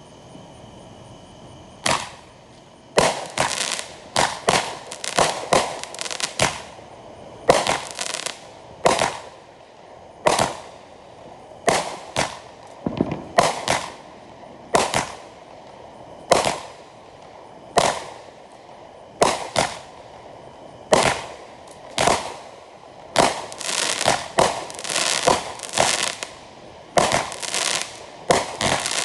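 Fireworks going off: a long, irregular series of sharp bangs starting about two seconds in, sometimes several within a second and coming thickest near the end.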